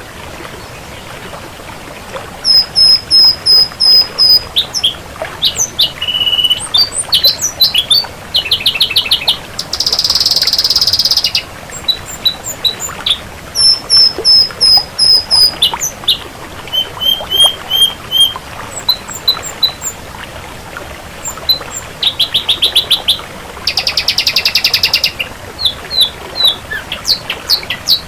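Ashy drongo singing a varied song of repeated short whistled notes, fast rattling trills and harsh buzzy phrases. The song starts about two seconds in, after a stretch of faint background hiss.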